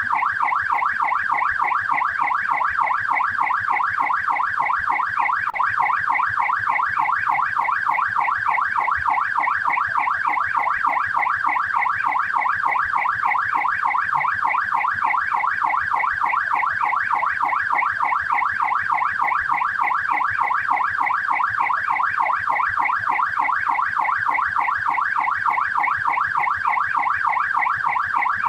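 Australian police car siren on its yelp setting: a fast electronic wail sweeping up and down in pitch about four times a second.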